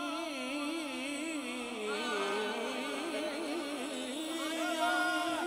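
A man singing a naat, drawing out long wordless notes with a fast, wavering ornament in the pitch, and moving up into a higher phrase near the end.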